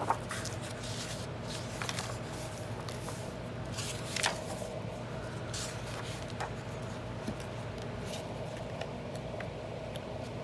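Paper pages of an old book being handled and lifted apart: light rustling with scattered small clicks, the most distinct rustle about four seconds in.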